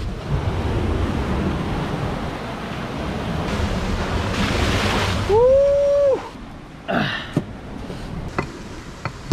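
Surf washing on the beach with some wind on the microphone. About five seconds in, the loudest sound is a short, clear tone that rises, holds and falls. It is followed by a few sharp knocks, in line with a cleaver chopping into driftwood.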